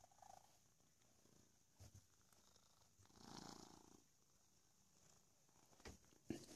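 A domestic cat purring faintly while being brushed, swelling for about a second midway. Two short knocks come near the end.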